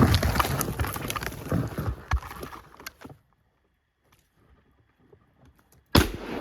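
Footsteps crunching through snow, stopping about three seconds in; after a few quiet seconds a single sharp, loud crack near the end, a hunting gunshot.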